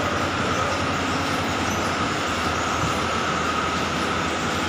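Steady running machine noise with a high, constant whine and a fast low pulsing underneath, unchanging throughout.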